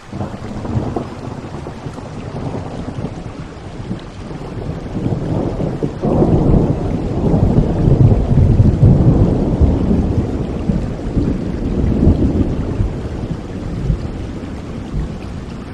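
Steady rain with a long rolling thunder rumble that comes in suddenly, swells to its loudest about halfway through, then slowly dies away.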